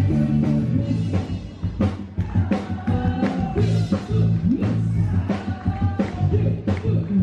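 A live band playing an upbeat song on drum kit, bass and guitar, with a singer's voice at times.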